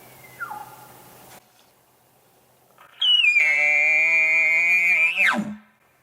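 Elk bugle: a loud, high whistling note held for about two seconds that then drops steeply into a low grunt. Just before it, a faint falling whistle, the tail of a more distant bugle.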